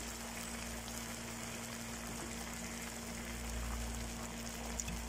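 Shallots, garlic and sauce frying gently in hot oil in a frying pan: a steady, even sizzling hiss, with a steady low hum underneath.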